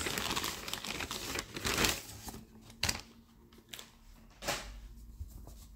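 Plastic mailing satchel crinkling and rustling as it is handled and opened, dense for about the first two seconds. After that come a few lighter rustles and sharp clicks.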